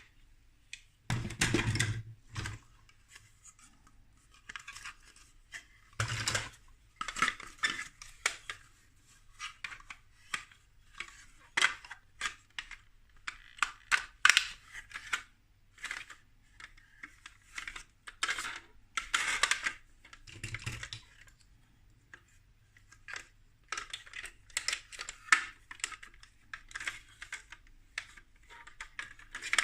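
Plastic building bricks being handled and assembled: a long run of small clicks and clattering rattles as pieces are picked through and pressed together, with a few heavier thumps along the way.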